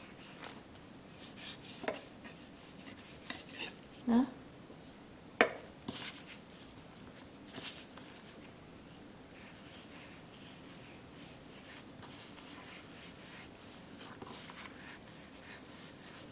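Kitchen knife working on a wooden cutting board while cutting the skin off a slab of pork belly: a few sharp knocks of the blade on the board, the loudest about four and five seconds in, between faint scraping of the blade.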